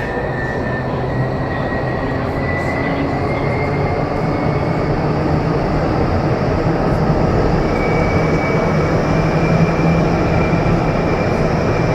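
Vertical wind tunnel of an indoor skydiving facility running: a steady rush of air and fan rumble, with a faint high whistle over it.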